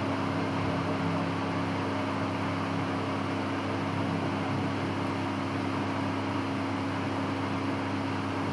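Steady background hum and hiss with no distinct events: constant low hum tones under an even noise, the room or recording setup's own noise.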